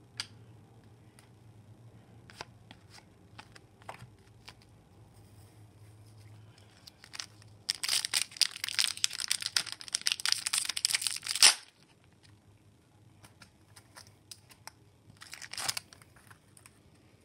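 A foil Upper Deck hockey-card pack being torn open by hand: about four seconds of loud crinkling and tearing, starting about halfway through and cutting off suddenly. Light scattered taps come before it, and a short crinkle follows near the end.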